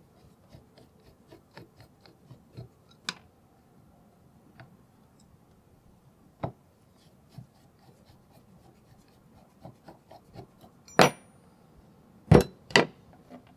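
Screwdriver turning a screw out of a rusty cast-iron vise jaw: light scraping and small clicks. Near the end come three sharp knocks of metal parts, the screwdriver and the removed jaw plate, set down on a wooden bench.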